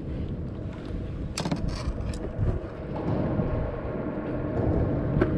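Wind buffeting an action camera's microphone, a steady low rumble, with a few sharp clicks a second or two in and one more near the end. From about three seconds in a faint steady hum runs underneath.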